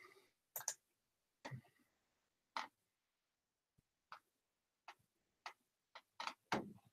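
About ten short clicks and light knocks at irregular intervals, faint overall, with the loudest, a duller knock, near the end.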